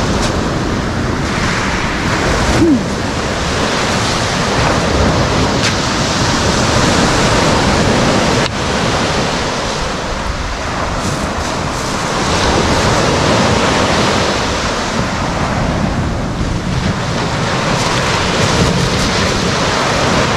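Small waves breaking and washing up a pebble beach, a steady surf noise that swells and eases gently.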